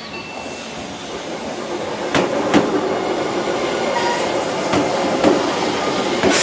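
Tobu 100 series Spacia electric train rolling into the platform and past at close range, its running noise growing louder. Its wheels give several sharp clacks over the rail joints.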